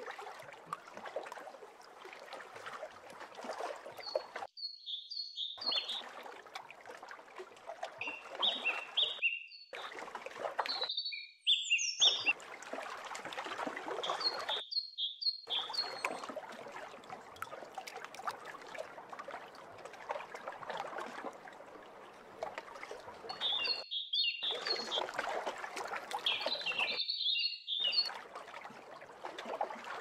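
A steady wash of water sound, with a small bird calling several times in short bursts of quick, high chirps. The sound cuts out abruptly a few times.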